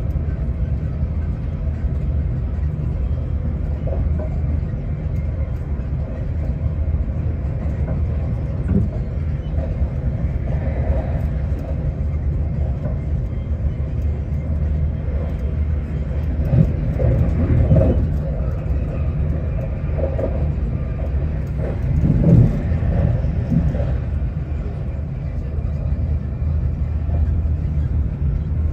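Steady low rumble of an Arlanda Express electric train running at speed, heard from inside the carriage, with a few louder knocks and swells about two-thirds of the way through and again near three-quarters.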